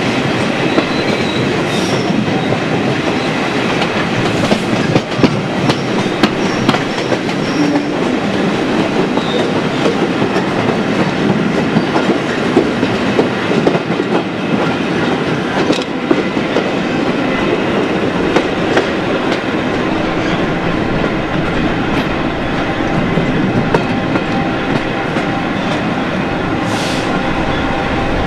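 A passenger train running over pointwork and rail joints, heard from an open coach window: a steady rumble with the wheels clattering and clicking irregularly.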